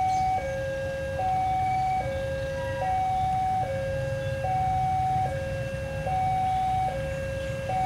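Level-crossing warning alarm sounding a steady electronic hi-lo two-tone, switching pitch just under once a second, as a train approaches. A low rumble runs underneath.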